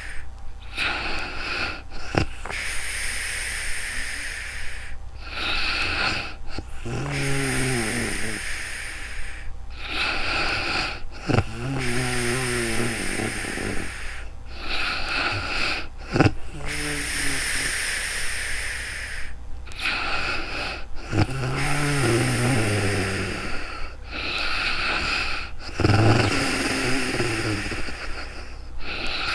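Woman snoring in her sleep: slow, regular breaths with a low, rattling snore about every four to five seconds, five times, over a steady low hum.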